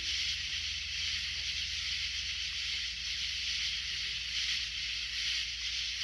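Chorus of night insects singing, a steady high-pitched drone with a steady low hum underneath.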